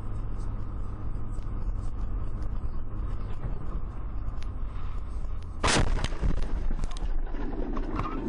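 Steady low rumble of a car driving, heard from inside the cabin, then about five and a half seconds in a sudden loud bang of an impact that leaves the windshield cracked, followed by scattered clicks and crackles.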